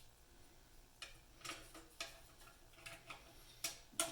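A few light, irregular clicks and taps from hand tools and engine parts being handled as a part is set back in place on the engine.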